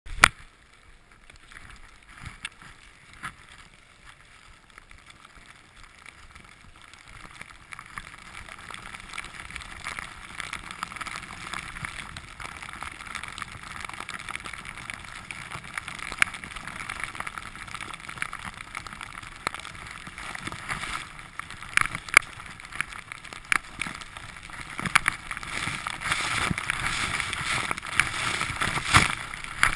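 Kei-Ski skis running through deep powder snow: a steady hiss that grows louder from about eight seconds in as the run picks up, with scattered sharp knocks and clicks.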